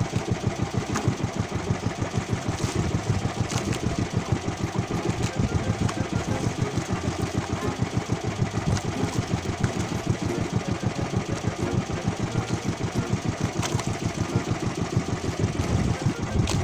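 Small fishing boat's engine idling, with a steady, rapid, even beat.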